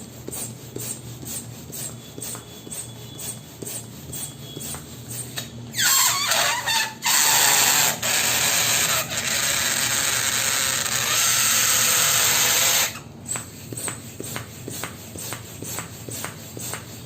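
Electric balloon pump blowing air for about seven seconds, starting about six seconds in with a short falling squeal and cutting out twice briefly. Faint rhythmic ticking about twice a second runs underneath.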